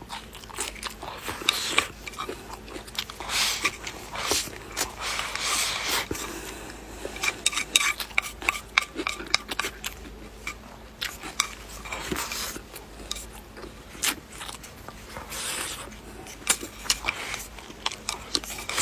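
Eating sounds: chopsticks clicking against a bowl again and again, between stretches of chewing.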